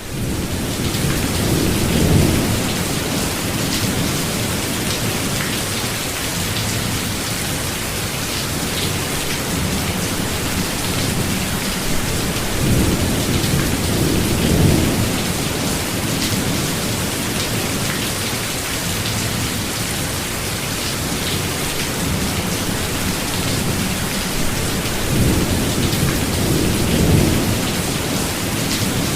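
Steady heavy rain falling, with low rolling rumbles of thunder three times: near the start, midway and near the end.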